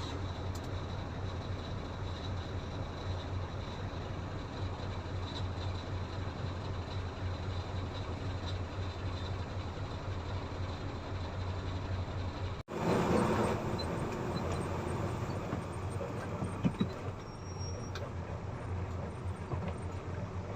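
Caterpillar 320 excavator's diesel engine running steadily with a low hum. The sound breaks off suddenly about 13 seconds in and comes back briefly louder, with a short knock a few seconds later.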